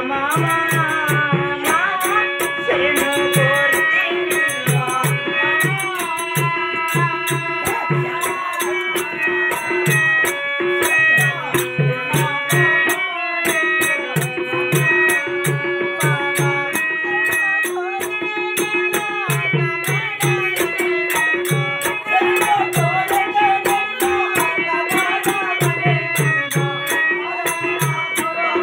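Live stage music: a drum beating a steady pattern under a held drone note and a winding melody, with sharp clicking percussion throughout.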